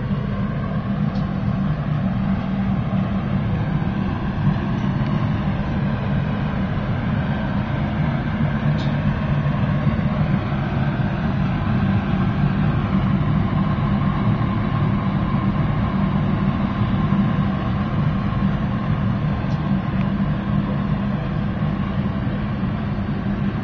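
Biomass gasifier furnace running under test, a steady low rumble with no let-up.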